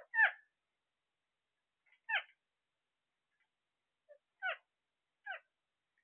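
Alexandrine parakeets giving short, meow-like calls, four in all a second or two apart, the first the loudest.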